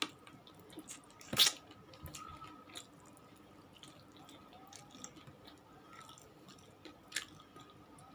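A person chewing fried chicken close to the microphone: quiet mouth and chewing sounds broken by a few sharp clicks, the loudest about a second and a half in.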